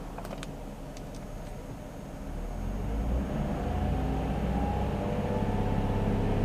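Nissan Fairlady Z (Z33) V6 engine running at idle, then revved up from about two seconds in, its note rising and growing louder. A few faint clicks come in the first second and a half.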